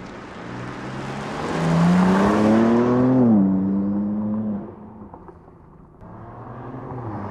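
BMW M4 Competition's twin-turbo straight-six accelerating past, its note rising in pitch for about two seconds and then dropping sharply a little over three seconds in. The engine holds a steady note, fades as the car pulls away, and grows louder again near the end.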